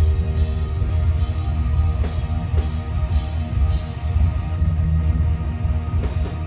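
Rock band playing live: electric guitars over bass and drum kit, with cymbals struck on a steady beat.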